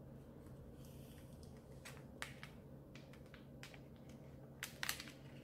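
Faint scattered crackles and clicks of adhesive vinyl and plastic transfer tape being handled and pressed into place by fingers, with a quick cluster of louder crackles near the end.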